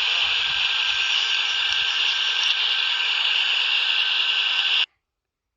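Radio static hissing steadily from a Retevis RA79 walkie-talkie's speaker while it receives on the 27 MHz CB band in upper sideband, then cutting off abruptly near the end.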